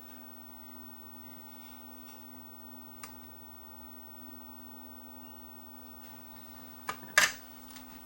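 Steady low hum, then a small click about three seconds in and two sharp clicks near the end, the second the loudest. The clicks are handling noise from fitting a replacement capacitor into a radio chassis.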